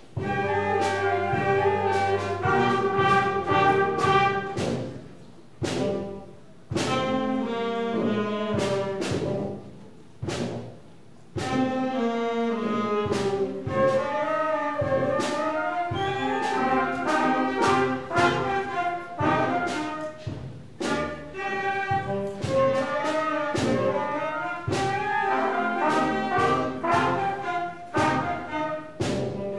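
Middle school concert band playing a creepy-sounding piece: brass and saxophones over sharp percussion strikes. It stops briefly a few times in the first ten seconds or so, then plays on without a break.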